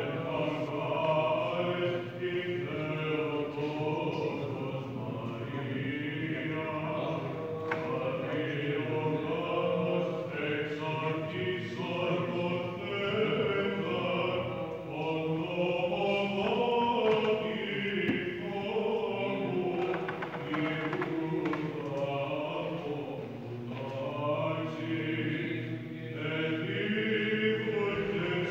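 Monks' Byzantine chant at Vespers: several male voices singing a slow melodic line together over a steady low held note.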